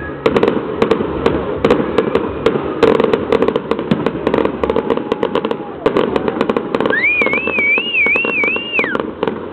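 Fireworks display going off in rapid succession: dense bangs and crackling over a continuous rumble. Near the end a high, wavering whistle rises, warbles for about two seconds and falls away.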